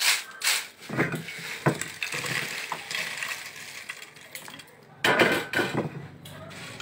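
Crispy fried potato slices rustling and clattering in a stainless steel mesh colander as they are shaken and tipped out onto a ceramic plate, with a louder burst of clatter about five seconds in.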